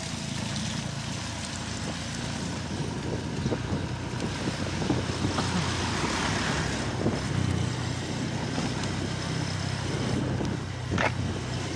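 Motorcycle engine running steadily while riding, with wind buffeting the microphone and road noise. Another vehicle passes around the middle.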